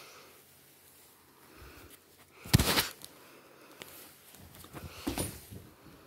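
A cat moving about on a person's jacket: two short bursts of fabric rustling and bumping, the louder one about two and a half seconds in and another about five seconds in.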